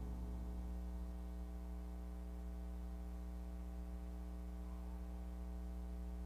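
Steady electrical mains hum with many even overtones. The last of a piano tail dies away within the first second.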